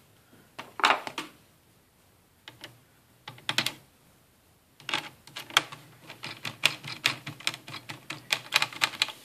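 Small screws being fastened by hand with a screwdriver into a laptop's metal hard-drive caddy: a few separate clicks at first, then a quick run of ticking, several clicks a second, from about halfway through.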